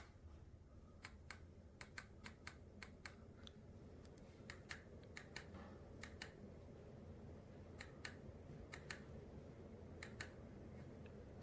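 A DC-motor ceiling fan running at its top speed, heard as a faint, steady low rush of air. About twenty faint, sharp clicks come at uneven intervals over it.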